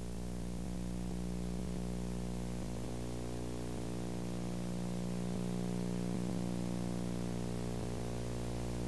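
Steady electrical hum, a stack of even low tones, under a layer of tape hiss. The live sound of the old videotape has dropped out.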